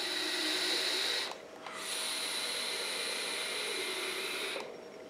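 Air drawn through an Aspire Cleito atomiser fitted with the RTA kit and Clapton coils, firing at 35 watts: a steady hiss in two pulls, a short one and then a longer one of about three seconds.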